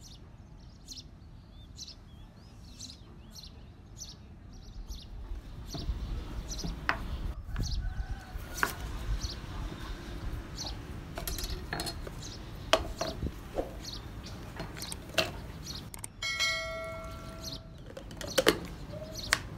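Kitchen knife slicing carrots on a wooden cutting board: irregular sharp knocks on the board, with small bird chirps in the background. About three quarters in, a held pitched tone lasts about a second.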